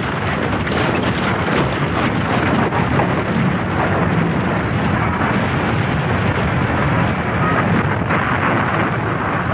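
Steady, dense rumble of a pyroclastic flow, a collapsing cloud of hot ash and boulders pouring down a volcano's slope.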